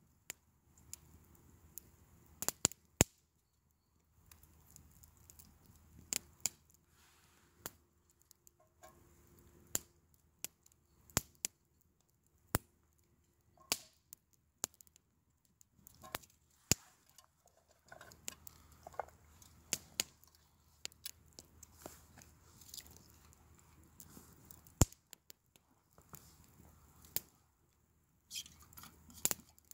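A knife cutting and peeling a raw vegetable held in the hand: irregular small cuts and clicks, a few sharper than the rest. Near the end there are several metal clinks from camp cups being handled.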